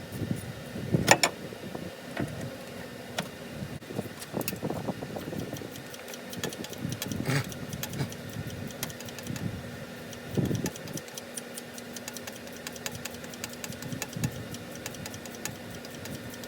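Hand tools working on the engine: a ratchet wrench clicking in fast runs, with occasional metal clanks and knocks, over a steady hum.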